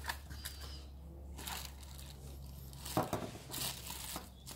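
Cardboard box and plastic packaging being handled, rustling and crinkling in short bursts, with one sharper clack about three seconds in.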